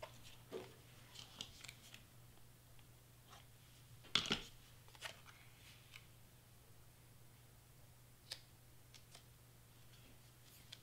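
Faint handling of cardstock pieces backed with foam tape: paper sliding and rustling with a few short crackles, the loudest about four seconds in, as the pieces are pressed down by hand.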